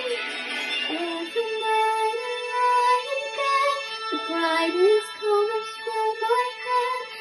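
Background song: a girl singing a melody over instrumental backing.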